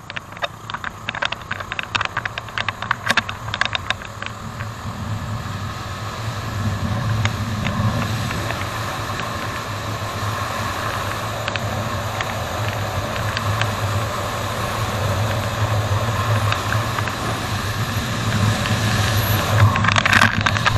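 Suzuki Raider R150 Fi motorcycle engine running steadily under way, with wind noise on the camera's microphone, growing gradually louder. Sharp clicks and crackles are heard through the first few seconds.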